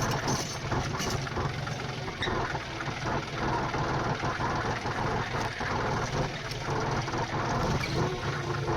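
Tractor engine running steadily at idle with a dense, even mechanical rattle.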